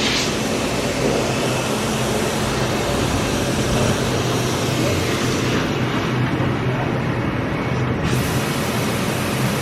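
Steady machinery noise in an industrial shop: a constant low hum with a steady hiss over it. The high hiss fades away past the middle and comes back abruptly about eight seconds in.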